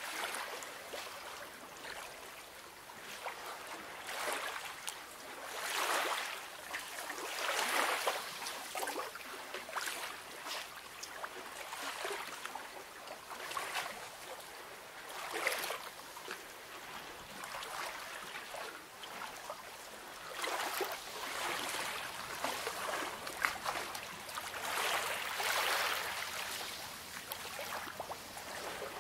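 Small sea waves lapping and splashing, a hiss of water that swells and falls back every couple of seconds.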